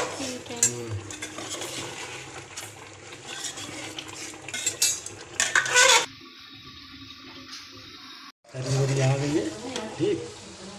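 A metal spoon scrapes and clinks against an aluminium pot as chicken korma masala is stirred, with a sizzle from the masala frying in oil. This is the stage where the masala is frying down until the oil separates, stirred so it does not burn on the bottom. There is a loud clatter of the spoon on the pot a little before the middle, and the sound briefly cuts out past the middle.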